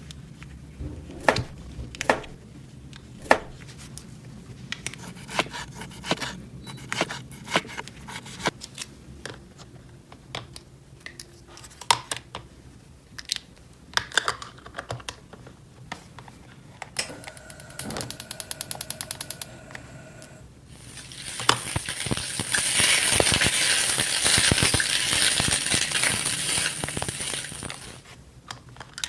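Small plastic toy pieces being handled and set down: scattered sharp clicks and taps. About seventeen seconds in comes a rapid even ticking lasting about two seconds, then a loud hiss lasting about seven seconds.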